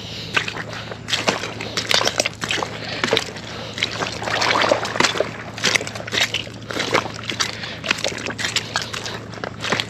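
Footsteps sloshing and squelching through wet mud and shallow water, an irregular run of wet slaps and crackles.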